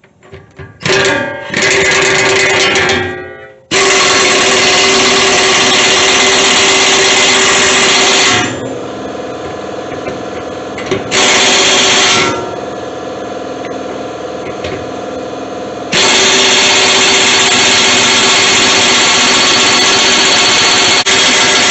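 Impact wrench running in several long bursts, tightening the stump jumper's nut back down onto the splined gearbox output shaft of a bush hog rotary mower, after the stump jumper was found loose. A quieter steady running sound continues between the bursts.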